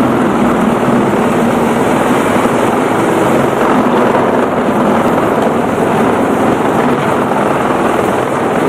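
Large diesel-powered industrial grinder running under load: a loud, steady rush of grinding noise over a low engine drone.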